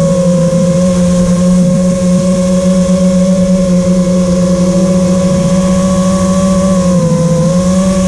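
Small electric drone's motors and propellers making a steady, loud hum, its pitch dipping briefly about seven seconds in before settling again.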